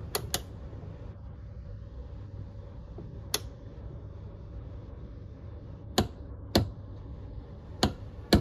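Sharp, isolated clicks from an INSIZE IST-19WM100C click-type torque wrench, about seven in all, two close together right at the start and a pair around six seconds in: the wrench's mechanism breaking over as each pull reaches the set torque. A low steady hum runs underneath.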